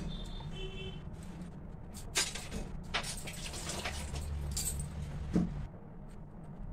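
Glass bangles clinking and small handling clicks and rustles as ingredients are worked over a steel plate, with a steady low hum underneath.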